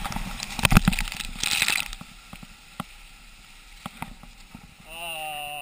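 Rossignol skis scraping and chattering over hard-packed snow on a downhill run, with knocks and wind on the camera. The sound is loud for about two seconds, then eases to a quieter hiss. A person's voice sounds briefly near the end.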